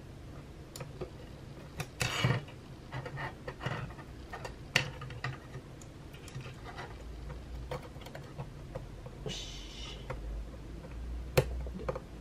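Small clicks and taps of hands and a small screwdriver working the perforated metal antenna plate and its connector back onto an opened Mac mini (mid 2011). A few sharper clicks stand out, the loudest about two seconds in and near the end, with a brief rustle in between.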